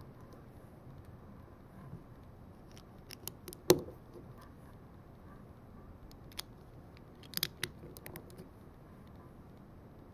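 Lego bricks being snapped together by hand: a few sharp plastic clicks, the loudest about four seconds in, and a quick run of three or four clicks at about seven and a half seconds, with fainter ticks between.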